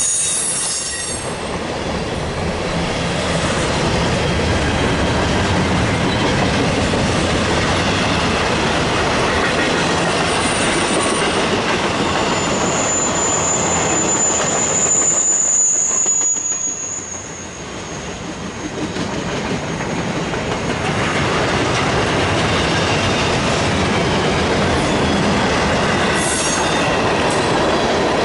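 CSX intermodal freight train's well cars rolling past on the rails, with a steady rumble and clatter of wheels over the track. A high-pitched wheel squeal holds for several seconds near the middle, and shorter squeals come before and after it.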